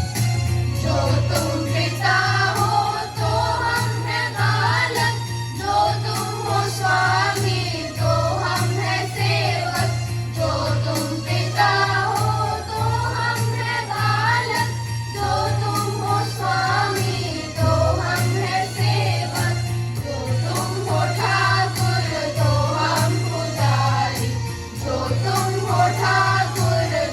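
A group of school students singing a prayer in chorus with musical accompaniment and a steady beat.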